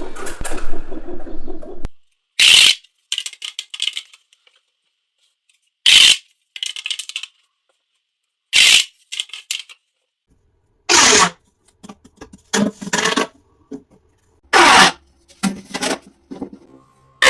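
Plastic pop tubes being pulled and squashed: about six rounds, each a sharp pop followed by a quick clattering run of smaller clicks as the ribs snap open or shut, with short silences between.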